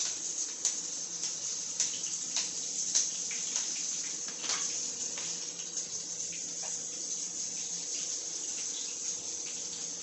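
Oil sizzling steadily in a frying pan, with a few sharp pops in the first half.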